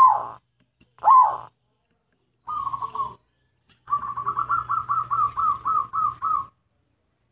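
Zebra dove (perkutut) cooing: two loud rise-and-fall notes, a short rattling phrase, then a quick series of about a dozen rolling coos that stops about six and a half seconds in.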